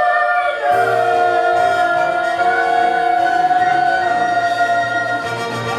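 A group of singers holding one long, steady note of a musical-theatre song over instrumental accompaniment.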